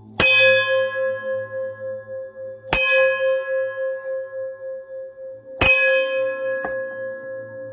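A metal bell struck three times, about two and a half to three seconds apart, with a lighter strike near the end. Each strike rings on, and one strong tone holds with a wavering pulse between strikes.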